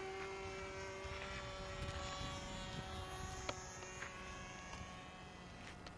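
OS 15 FP two-stroke glow engine of a radio-controlled model airplane, buzzing steadily in flight and slowly growing fainter. A sharp click comes about halfway through.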